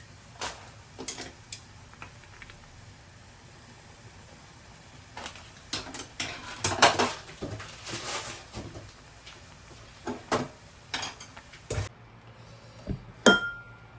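Kitchen clatter: dishes and utensils clinking and knocking on and off, busiest in the middle. Near the end comes a sharp clink with a brief ring.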